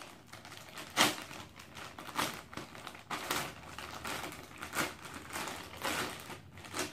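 Grey plastic poly mailer bag being torn open and crinkled by hand: irregular sharp rips and rustles, the loudest about a second in.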